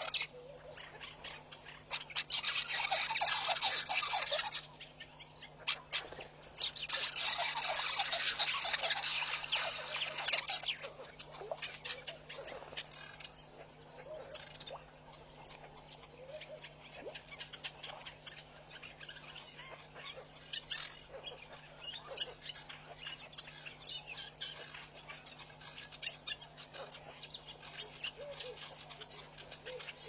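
Outdoor wildlife ambience: a steady high pulsing insect trill and a low hum throughout, with scattered faint chirps. About two seconds in, and again about seven seconds in, come two loud bursts of dense crackling noise that last a few seconds each.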